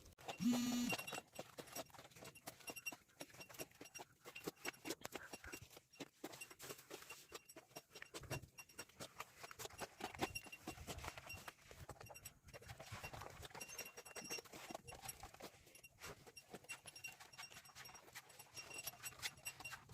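Irregular light knocks and rattles throughout, with a short pitched call about half a second in.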